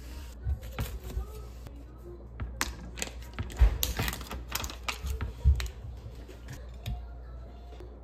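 Thin plastic film crackling and clicking in irregular bursts as it is peeled off a plastic tray of firm tofu, with a couple of dull knocks of the tray against a wooden cutting board.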